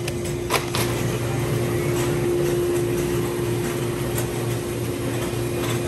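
Steady machine hum of a grocery store's refrigeration and ventilation, one even tone over a low drone, with a couple of sharp clicks or knocks about half a second in.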